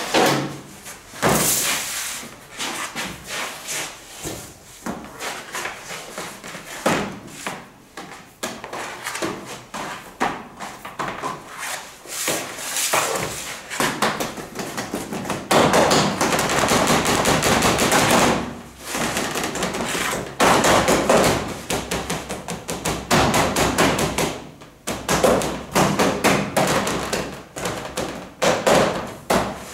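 Rapid, irregular taps and knocks of a metal dough scraper chopping against a metal baking tray as dough is cut, mixed with hands working dough on a steel worktable. The knocking comes in busier stretches.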